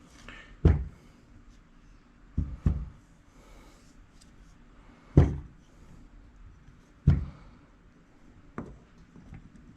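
About six dull knocks at uneven intervals, two of them close together about two and a half seconds in, as the internal parts of a GM Type II Saginaw power steering pump are worked into the pump housing during reassembly.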